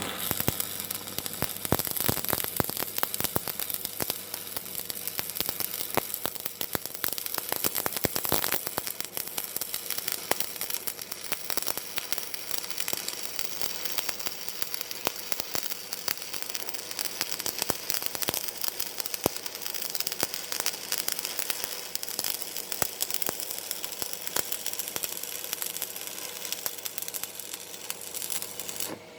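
Stick-welding arc with a 2.2 mm electrode, crackling steadily, then cut off abruptly just before the end when the arc is broken.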